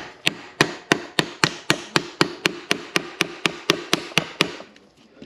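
Polaris 700 Sportsman electric starter motor being banged on the bench, about eighteen quick metallic strikes at roughly four a second that stop near the end. The starter has failed to turn on a 13-volt booster pack, and it is being struck to try to free it.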